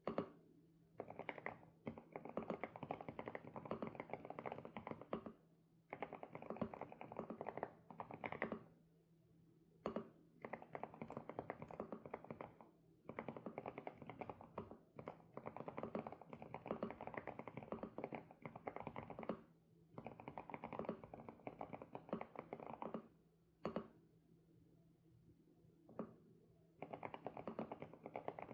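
SPM PL108W mechanical keyboard with Sunset switches being typed on in fast runs of keystrokes a few seconds long, with short pauses between runs and a few single key presses on their own.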